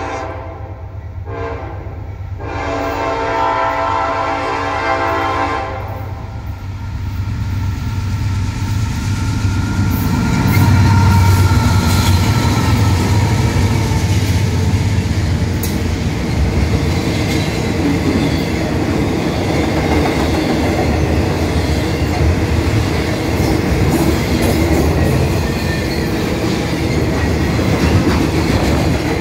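Norfolk Southern freight train's horn sounding in blasts, a short one and then a long one that ends about six seconds in. Then the lead diesel locomotives come by, loudest about ten seconds in, followed by double-stack container cars rolling past with steady wheel noise and clickety-clack over the rail joints.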